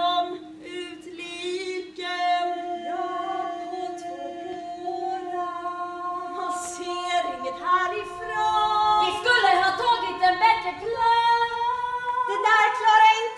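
A small women's choir singing unaccompanied in several parts, with a low note held steadily under a slow melody. The singing grows fuller and a little louder from about nine seconds in.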